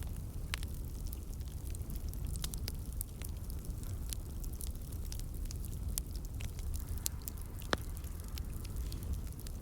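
Burning firewood crackling: irregular sharp pops over a low steady rumble, with one louder pop about eight seconds in.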